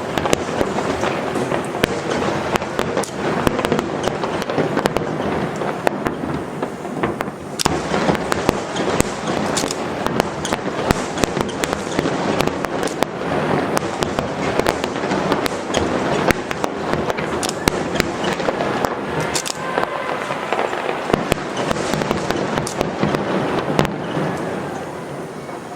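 Dense barrage of aerial fireworks in a finale: many sharp bangs one after another over continuous crackling, dying down near the end.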